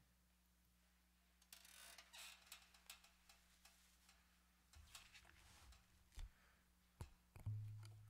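Near silence: quiet room tone with a faint steady low hum and a few soft scattered clicks and rustles.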